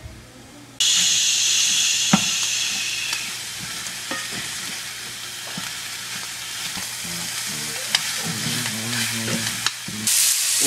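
Ground sausage sizzling as it fries in a pan, the hiss starting suddenly about a second in. A spatula breaking up the meat gives occasional clicks and scrapes against the pan.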